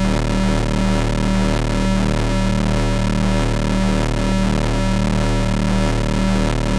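Astrogorus synthesizer playing a thick, noisy electronic drone: steady low tones under a dense hiss, with a tone pulsing about two to three times a second.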